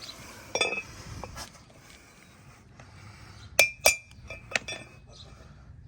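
Hammer tapping a brass punch against a bearing race in a brake rotor hub: a few sharp, ringing metal strikes at uneven intervals, the two loudest close together about three and a half seconds in.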